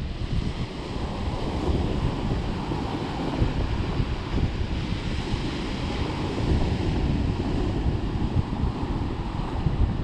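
Sea surf breaking and washing in, with wind gusting on the microphone in a steady low rumble.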